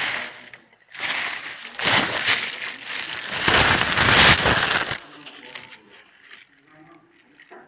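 A thin plastic bag crinkling and rustling hard right against the microphone, in loud crackly bursts that die away about five seconds in to faint rustles.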